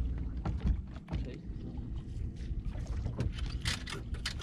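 Low wind and water noise around a bass boat, with a run of sharp clicks and clatters about three and a half seconds in as a fishing rod is grabbed from among the rods on the deck.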